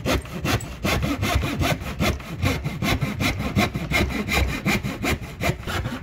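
Hand saw cutting a sheet of film-faced laminated plywood, with quick, even back-and-forth strokes.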